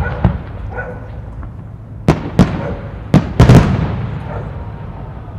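Aerial firework shells bursting: a sharp report right at the start, two more about two seconds in, then a close cluster around three seconds. Each bang trails off in an echoing rumble.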